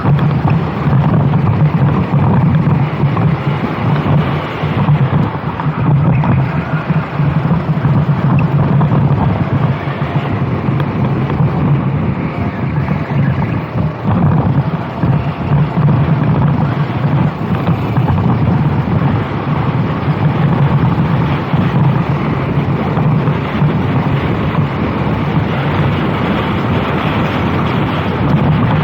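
Racing go-kart engine running continuously at speed, its drone wavering as the throttle changes, with wind buffeting the microphone.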